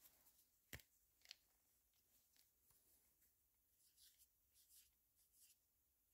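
Near silence, with a sharp handling click about a second in and a smaller one shortly after, then faint squeaky scratching strokes of a felt-tip permanent marker writing on the plastic housing of an angle grinder near the end.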